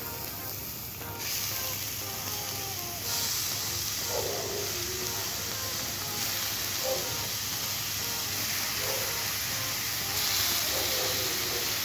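Beef ribs sizzling in hot oil as they are laid into a stainless steel pan of sautéed onion and garlic. The steady sizzle grows louder about a second in and again about three seconds in as more pieces go into the pan.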